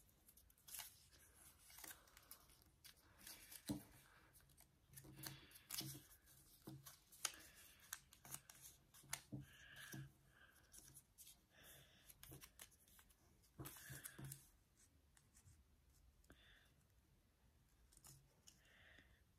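Faint rustling and crinkling of origami paper being folded and creased by hand against a wooden tabletop, in short irregular rustles and clicks that grow sparser in the last few seconds.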